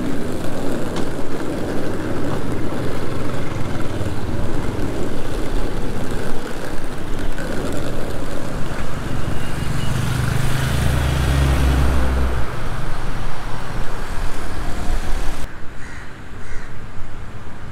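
Busy city street traffic, cars and motorbikes running past in a steady wash of engine and tyre noise. A deeper engine note swells for a couple of seconds about ten seconds in. Near the end the sound cuts abruptly to a quieter background.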